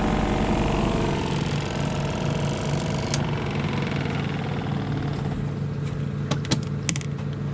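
A small washing machine's centrifugal spin dryer running, a steady mechanical hum, with a few sharp clicks near the end.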